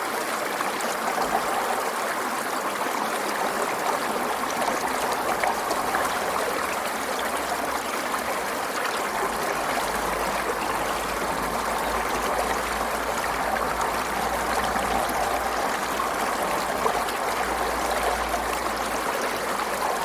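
Forest stream flowing steadily over stones, a continuous babble and trickle of water.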